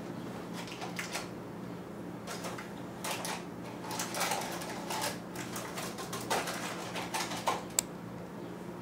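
Irregular metallic clicks and scrapes of a utensil working sweetened condensed milk out of a tin can, in scattered bursts, over a faint steady hum.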